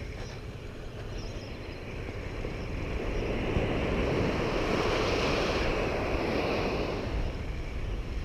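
Ocean surf breaking and washing up the beach, swelling louder about halfway through, with wind rumbling on the microphone.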